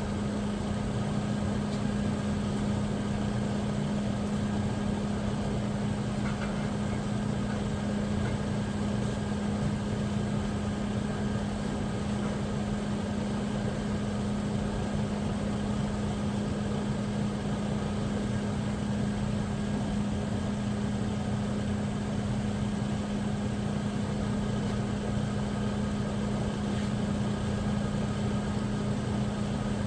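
Steady machine hum with a strong low tone and a few fainter higher tones, unchanging throughout.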